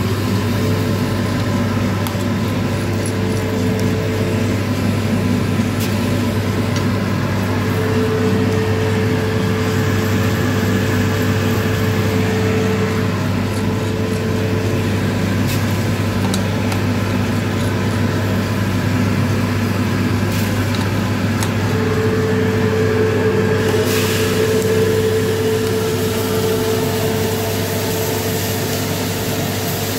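Drum coffee roaster running: a steady motor and fan hum with beans tumbling in the drum. Near the end the roasted beans pour out of the drum into the cooling tray with a rising rushing hiss.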